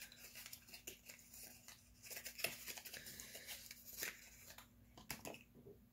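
Faint rustling, crinkling and tearing of a small product's packaging being opened by hand, with scattered light clicks from handling a small plastic jar.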